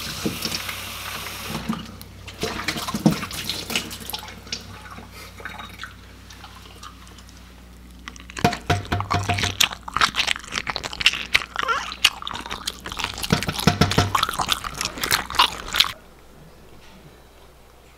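Water running from a kitchen tap, followed about halfway through by several seconds of rapid, loud clicking and clattering. It stops suddenly near the end.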